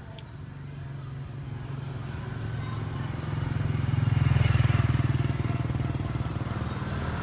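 Small motorcycle engine running steadily, growing louder to a peak about two-thirds of the way in, then easing slightly.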